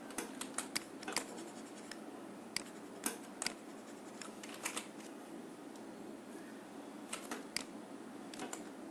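Scattered light clicks and taps of a stylus on a drawing tablet, coming in small clusters a second or two apart, over a faint steady hiss.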